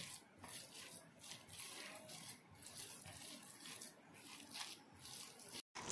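Faint, irregular wet squishing of bare hands kneading and pressing mashed hilsa fish mixed with mustard oil, onion and chillies on a plate.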